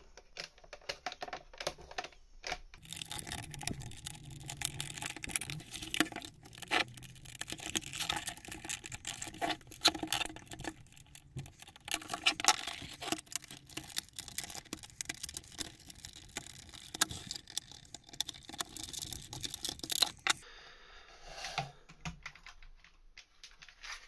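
A small screwdriver prying at the plastic clip tabs of a Ford Focus mk2 instrument cluster housing, levering the front panel free. It makes irregular clicks and scrapes of plastic, which thin out near the end.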